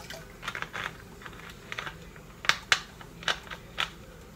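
Scattered short plastic clicks and taps as a plastic vinegar bottle is handled and its cap is screwed back on; the sharpest clicks come a little over halfway through.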